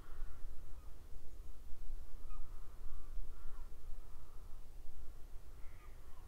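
Crows cawing several times in the distance, each call short and harsh, over a steady low rumble.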